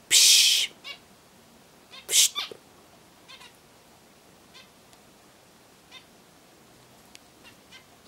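Small pet cage birds calling: a loud, harsh, hissy sound lasting about half a second at the start and another about two seconds in, followed by soft short calls every second or so.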